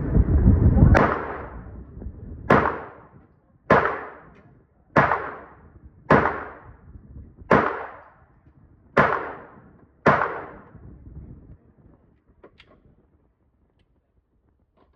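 Eight gunshots fired at a steady pace, one every second or so, each trailing off in an echo. Wind rushes on the microphone until the first shot.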